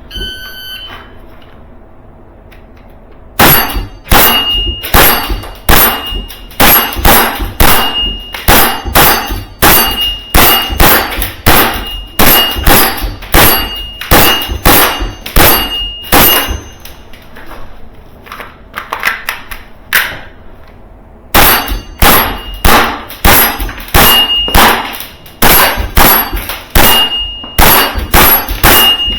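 Tokyo Marui FN 5-7 gas blowback airsoft pistol with a Guarder metal slide firing a long string of shots, about two a second, each a sharp metallic clack of the slide cycling, with a high ringing after some of them. The string pauses for a few seconds past the middle, then resumes.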